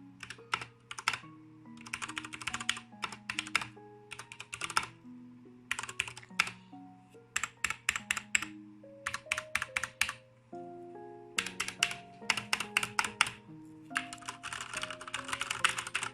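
Cherry MX Brown mechanical key switches on a Ducky keyboard clacking as someone types in quick bursts, with short pauses between runs of keystrokes.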